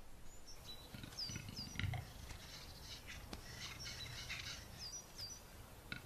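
Small birds calling faintly: short high chirping notes, several coming in quick pairs, with a few soft clicks between.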